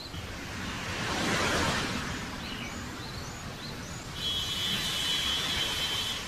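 Outdoor ambience: a steady rush of noise that swells about a second in, with a few short bird chirps in the middle and a steady high trill over the last two seconds.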